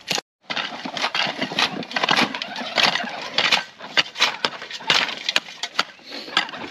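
Shovels digging into rocky dirt: steel blades scraping and striking soil and stones in quick, irregular strokes.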